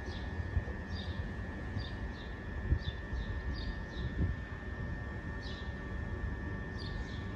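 Southern Class 377 electric multiple unit drawing slowly into the platform: a low rumble with a steady high whine. A bird chirps over it in short falling notes, again and again.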